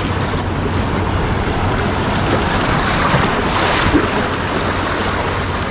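Sea waves surging in and washing over and around shore rocks, a steady rushing that swells about three to four seconds in as a wave breaks into the gully.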